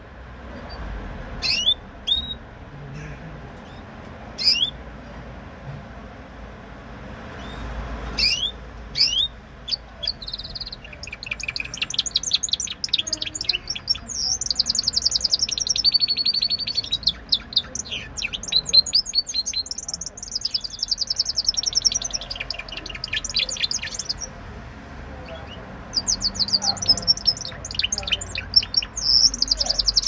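Spanish Timbrado canary singing: a few separate falling chirps at first, then from about ten seconds in long, fast rolling trills with short breaks, starting up again near the end.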